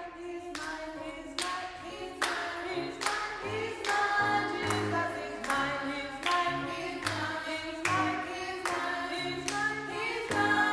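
Group of voices singing a gospel praise song, with a steady clap on the beat a little more than once a second.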